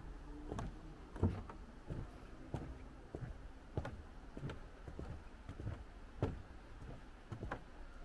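Footsteps on a wooden boardwalk at a steady walking pace, about three steps every two seconds, each step a short low knock on the planks.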